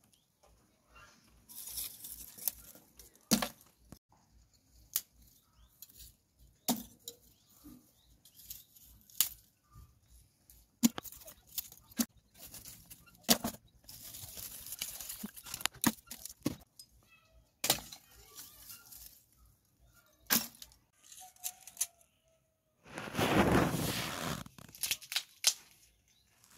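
Lumps of freshly made wood charcoal being handled and dropped into a plastic bucket: irregular sharp clinks and knocks with stretches of scraping and rustling, and a longer, louder scrape near the end.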